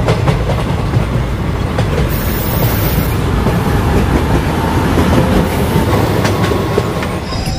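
Diesel-hauled passenger train pulling into the station: the locomotive's engine rumbles and the coach wheels clatter over the rails, with a few sharp clicks.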